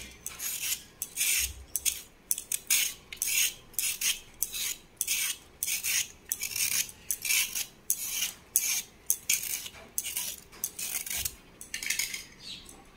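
Repeated scraping strokes peeling the ridged skin off a ridge gourd, about two to three short rasps a second.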